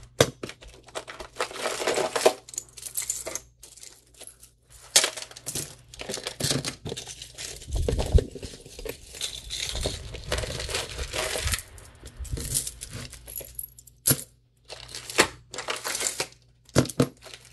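Costume jewelry and small plastic zip bags being handled: metal pieces clinking and clattering, mixed with plastic crinkling and rustling in irregular bursts.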